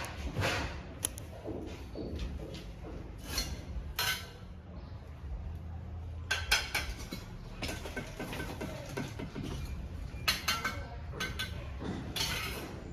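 Irregular metallic clinks, knocks and scrapes of hand tools at construction work, over a steady low hum.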